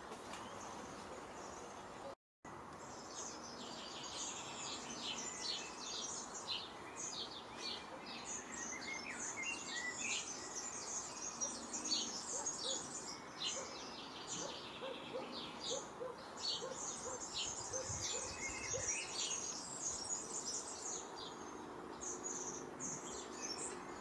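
Small songbirds chirping: after a brief dropout about two seconds in, a dense stream of short, high chirps and tweets, with a few lower short notes mixed in.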